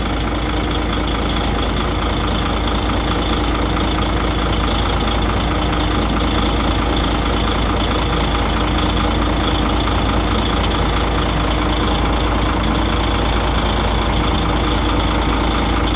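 DAF truck's diesel engine idling steadily and evenly.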